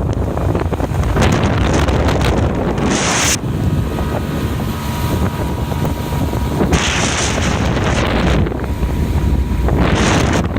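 Wind buffeting the microphone aboard a boat at sea, over a steady low rumble. A loud hissing rush surges up three times, about a second in, near seven seconds and near the end.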